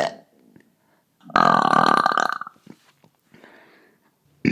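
A woman's single long burp, a little over a second long, starting about a second and a half in and holding a steady pitch; another burp or word cuts off right at the start.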